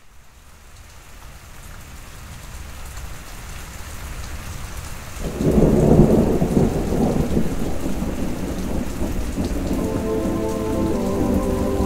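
Recorded rainstorm ambience fading in, steady rain with a loud rolling thunder rumble about five seconds in. Near the end, steady held musical tones join over the rain.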